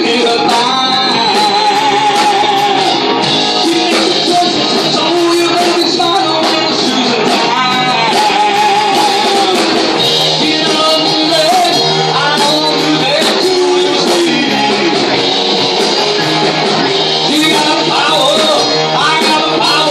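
Live rock band playing a cover, with electric guitar, bass, drums and a male lead vocal, loud and unbroken.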